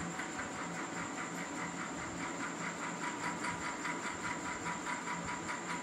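A steady background hum and hiss from a running machine, with an even pulse about five times a second and a few faint steady tones.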